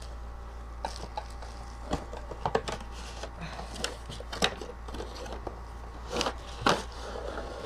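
Cardboard headphone packaging being opened by hand: the box and its inner cardboard tray sliding, scraping and tapping, with plastic wrapping rustling, in scattered small knocks, a few sharper ones near the middle and near the end.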